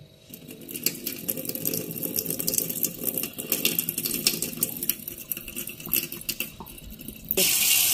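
Wet washed bilimbi flowers being handled and drained in a bowl: irregular light clattering and dribbling water. About seven seconds in, a steady gush of running water starts suddenly.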